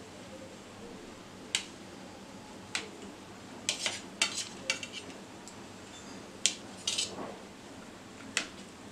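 A metal utensil knocking and scraping against a stainless steel plate while it cuts through soft paneer, giving about a dozen irregular sharp clinks, a few ringing briefly.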